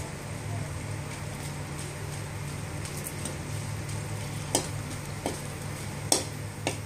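Dried red chillies frying in a little hot oil in a metal kadai, a steady sizzle, stirred with a perforated metal ladle that clicks and scrapes against the pan a few times in the second half.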